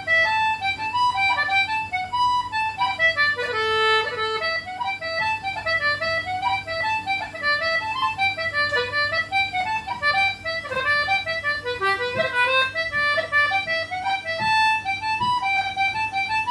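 Anglo concertina playing a reel in A minor: a continuous quick run of reedy notes rising and falling, ornamented with grace notes.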